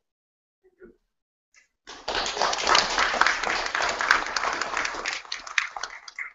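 Audience applauding, starting about two seconds in and thinning to a few scattered claps near the end.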